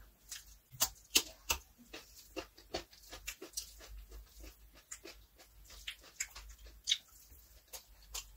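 Close-up eating sounds of a person eating rice with her hand: fingers mixing fried rice and curry, then wet chewing and lip smacks, heard as a run of irregular sharp clicks.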